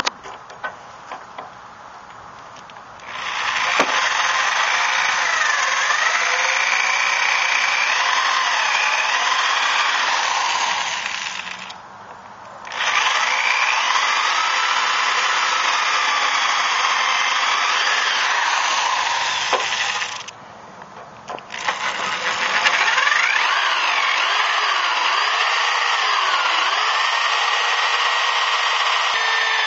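Electric drill boring out a tailgate strap bracket rivet: three long runs of several seconds each, split by two short breaks, with a grinding whine that wavers in pitch as the bit bites.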